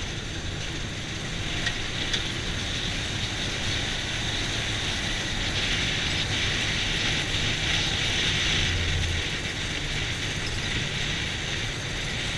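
Side-by-side UTV driving along a dirt road: a steady engine hum under the rattle of the open cab and the hiss of tyres and wind, a little louder in the middle.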